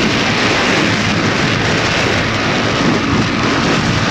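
Steady wind rush and motorcycle engine noise of a ride on the road, picked up by an action camera inside its waterproof case.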